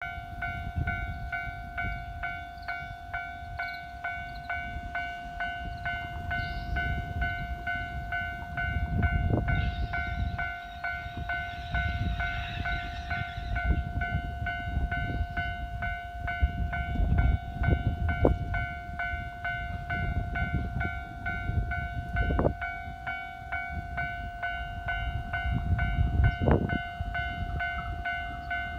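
Japanese railway level-crossing warning bell ringing continuously in a fast, evenly repeated electronic tone. Underneath it runs an uneven low rumble, and there are a few sharp knocks in the second half.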